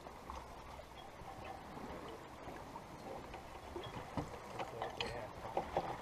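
Sailboat under way: a steady, fairly quiet rush of water along the hull mixed with wind noise.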